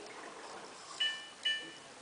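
Two short chime-like beeps, about half a second apart, from a Samsung WF8804RPA washing machine's control panel as its buttons are pressed.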